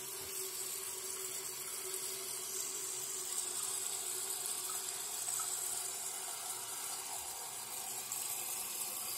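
Toilet cistern refilling through a newly fitted 1/2-inch side-entry fill valve, water running into the tank with a steady hiss.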